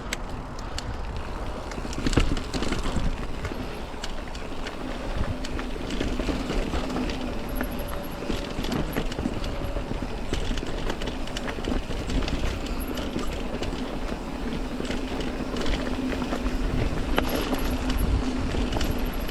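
Mountain bike riding over dirt singletrack: tyres rolling on the trail, with frequent small clicks and knocks as the bike rattles over roots and rocks.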